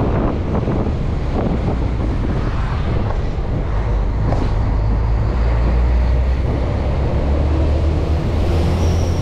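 Steady low rumble of an intercity bus on the move, its engine and road noise heard from inside the passenger cabin, with wind noise on the microphone.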